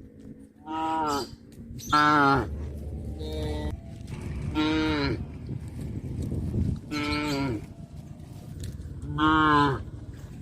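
Cattle mooing: about six short calls in a row, each dropping in pitch at the end.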